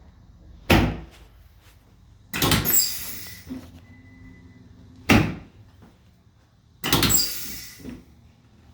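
Two sharp knocks about four seconds apart, each followed a couple of seconds later by about a second of rustling and scraping with faint squeaks.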